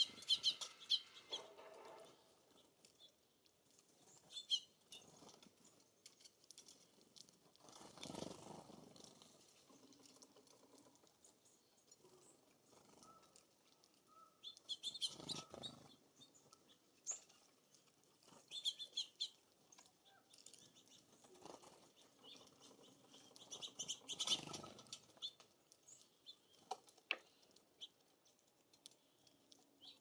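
Small songbirds at a feeder: several short bursts of high chirps and twitters, with the flutter of wingbeats as birds fly in and land, the loudest around halfway through and again near the end.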